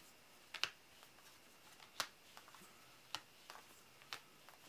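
Glossy jumbo playing cards being flipped off a deck one at a time, each card giving a short, sharp snap. There are four clear snaps about a second apart, with a few lighter ticks between them.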